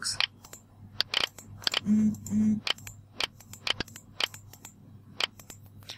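A computer mouse clicking repeatedly in irregular single clicks as calculator buttons are pressed on screen, over a steady low hum.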